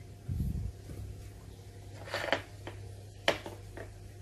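Pieces of young jackfruit being laid into a cooking pot: a soft thud, then a few light taps and clicks against the pot, over a steady low hum.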